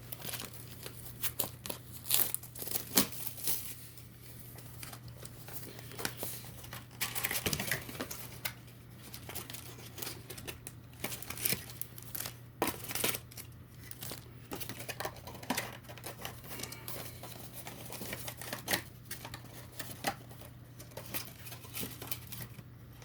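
Shrink-wrap being cut and torn off a cardboard trading-card box, with irregular plastic crinkling and tearing and the box being worked open. A steady low electrical hum sits underneath.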